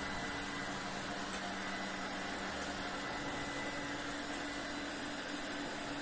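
iLife X785 robot vacuum running: a steady whir of its suction fan and brushes, with a faint low hum, as it drives along the skirting.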